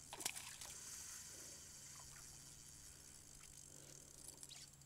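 Faint mechanical clicking of a fishing reel being worked against a hooked fish, with a few sharp clicks in the first half second over a low steady hum.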